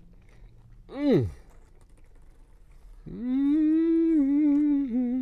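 A man humming with his mouth full while chewing: a short hummed "mm" about a second in, then a long hummed note from about three seconds in that starts to waver up and down near the end.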